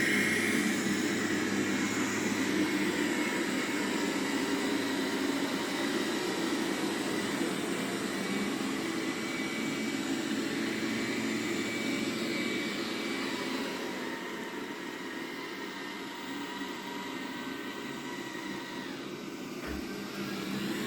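Roborock Q7 Max robot vacuum running on carpet: a steady whirring from its suction fan and brushes with a high whine on top, a little quieter in the second half. On carpet it raises its suction, which makes it louder.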